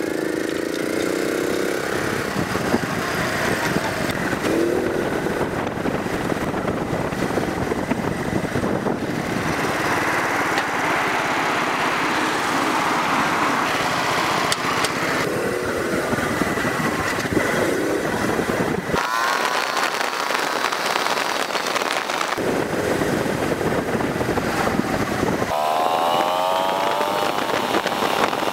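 Honda Z50-type mini bike's small single-cylinder four-stroke engine running under way, with wind and road noise over it. The engine note climbs as it revs up twice in the last third, and the sound changes abruptly a few times where shots are cut together.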